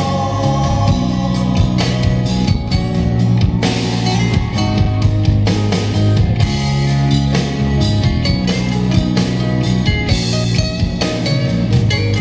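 Instrumental break of a Cantopop rock song: guitar over bass and a drum kit, with no singing.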